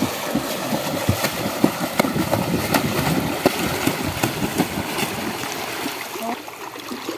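River water sloshing and splashing around people wading and moving in it, full of small quick splashes, easing off near the end.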